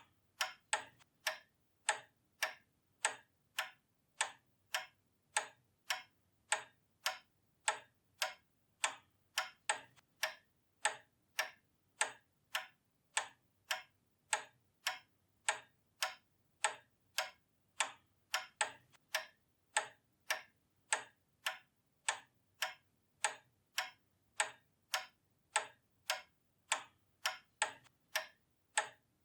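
Pendulum clock ticking steadily, a sharp even tick-tock at about two ticks a second.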